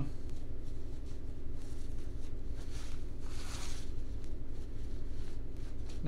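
Paper towel rubbing across a truck tire's tread, wiping leak-check spray off a freshly plugged hole, with one louder rustling wipe about three seconds in. A steady low hum runs underneath.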